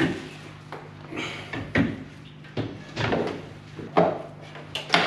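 Car radiator with its plastic fan shroud being worked up out of the engine bay by hand: a string of irregular clunks, knocks and short scrapes of plastic and metal against the surrounding parts, the loudest about four seconds in and near the end.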